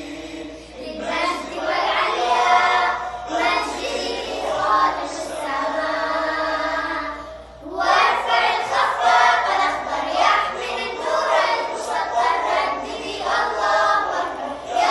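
A group of young girls singing together, with a brief pause about halfway through.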